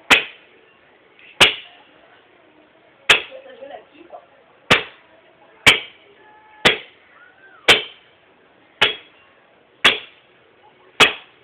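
Ten sharp blows of an axe chopping into wood, about one a second, each with a short ringing knock.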